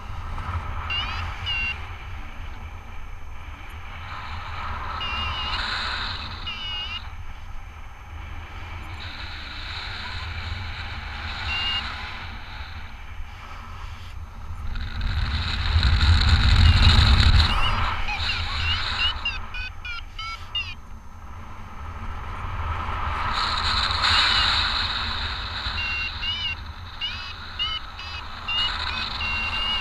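Wind rushing over the microphone of a paraglider in flight, a low rumble that swells loudest about halfway through. Over it come runs of short, high chirping beeps in quick series, typical of a paragliding variometer signalling climb.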